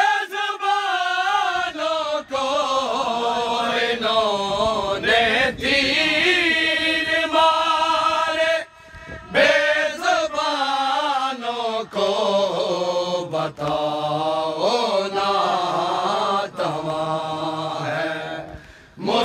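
Men's voices chanting a noha, a Shia lament, without instruments, in long drawn-out phrases whose pitch wavers and bends. The singing breaks for a breath about nine seconds in and again near the end.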